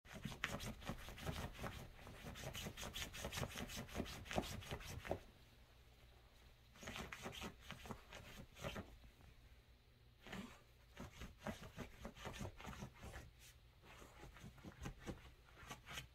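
Two small dogs play-wrestling on a bed, their paws and bodies scuffling and rustling the sheets and pillow. Dense rustling for about five seconds, then a lull, then more bursts of scuffling.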